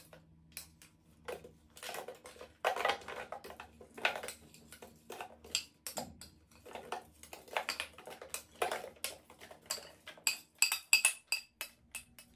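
A metal spoon knocking and scraping on a plate as frozen fruit chunks and ice cubes are spooned and tipped into a plastic Nutribullet blender jar: an irregular run of knocks and rattles, with a cluster of sharp ringing clinks near the end.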